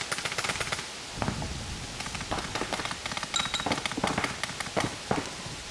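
Paintball markers firing: a fast string of pops right at the start, then scattered shots and short volleys.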